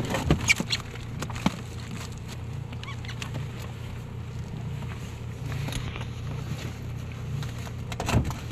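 Boat outboard motor idling with a steady low hum, with a few short knocks and clicks near the start and again near the end.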